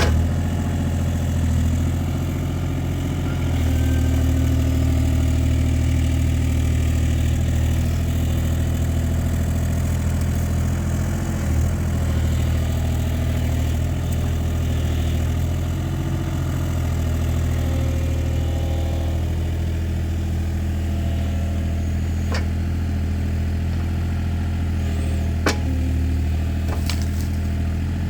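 An engine idling steadily, a low, even hum that holds its pitch, with a few faint clicks near the end.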